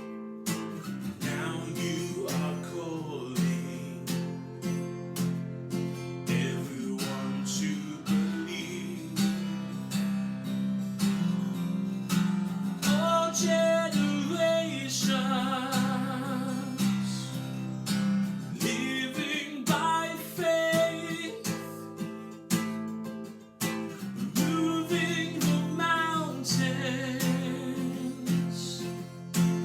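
Instrumental stretch of a worship song: strummed acoustic guitar chords with a wavering melodic line over them at times, no sung words.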